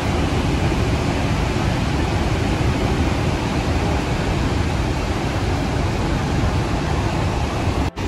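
Horseshoe Falls at Niagara, a huge waterfall, giving a loud, steady, even rush of falling water and rapids, heavy in the bass. The sound cuts out for an instant near the end.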